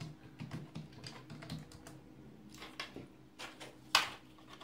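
Typing on a computer keyboard: a run of quick key clicks, with one louder, sharper knock about four seconds in.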